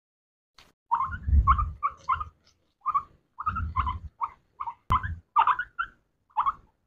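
Guinea pigs giving a string of short, clipped squeaks in an uneven rhythm like Morse code, with low thuds under some of them.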